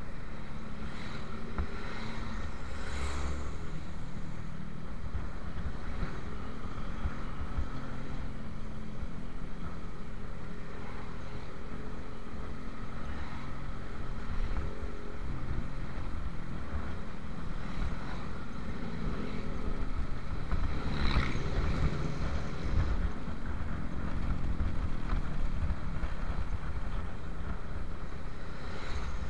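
Motorcycle engine running steadily while riding in traffic, with wind buffeting the microphone. There are brief louder moments from other traffic about three and about twenty-one seconds in.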